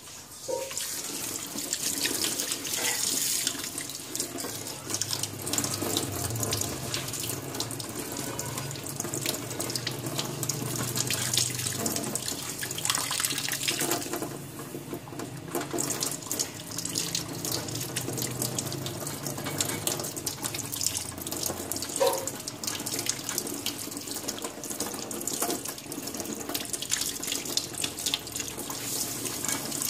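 Kitchen tap running into a stainless steel sink, the stream splashing over hands rinsing food under it.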